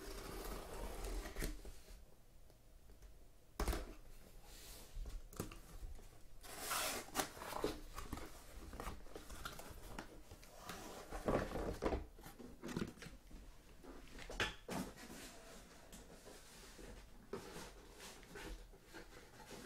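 Packing tape on a cardboard case being slit with a folding knife, then the cardboard flaps pulled open and sealed boxes lifted out and set down, with scattered knocks, scrapes and rustles and one sharp knock a little under four seconds in.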